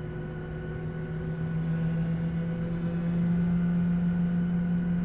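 Boeing 737 passenger-cabin noise while taxiing: a steady jet-engine drone with a strong low hum and fainter steady whines above it. It grows louder over the first three seconds, then holds.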